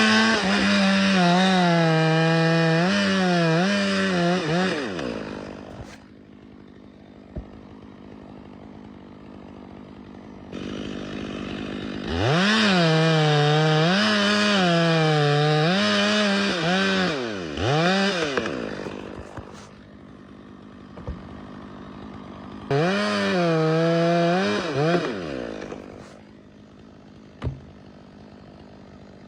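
Two-stroke chainsaw cutting into wood in three separate cuts. The engine pitch wavers and dips as the chain loads up in the wood, then falls away between cuts.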